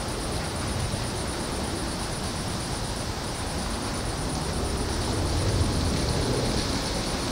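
Steady low rumble of outdoor background noise, with a faint, evenly pulsing high hiss above it.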